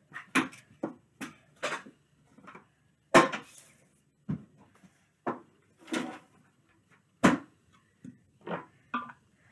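Irregular knocks and clatters of small objects being picked up and set down on a wooden desk as it is cleared, two of them much louder, about three and seven seconds in.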